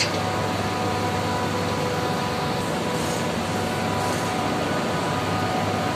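Steady background noise of running machinery: a continuous rushing hum with a few faint steady tones, unchanging throughout.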